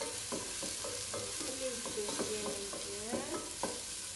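Chicken pieces sizzling as they fry in oil in a nonstick pot, stirred with a wooden spoon that knocks and scrapes against the pot about twice a second, with a few squeaky scrapes midway.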